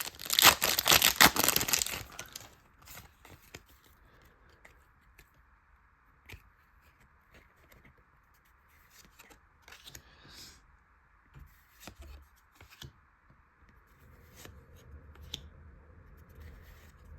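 Foil Pokémon booster pack wrapper being torn open and crinkled, loud for about the first two seconds, followed by quiet scattered clicks and rustles of cards being handled.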